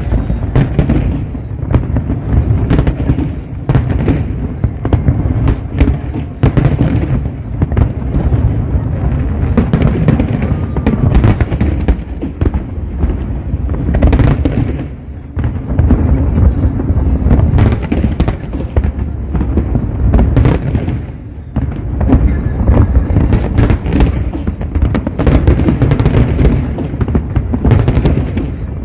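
Aerial fireworks display going off in a dense, unbroken barrage of deep booms and sharp cracks, many overlapping each second.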